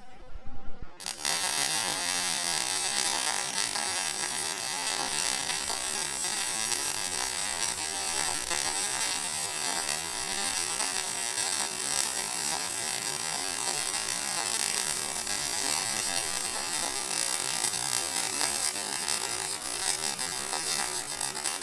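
MIG welder arc running steadily with a dense buzzing crackle, starting about a second in.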